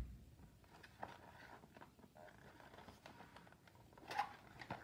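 Faint handling of a cardboard food box turned in the hands: a short low thump at the start, then a few light taps and rustles over near silence.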